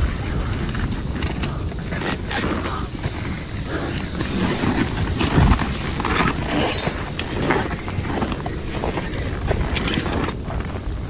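Wind buffeting the microphone with a low rushing noise, with irregular clicks and knocks scattered throughout.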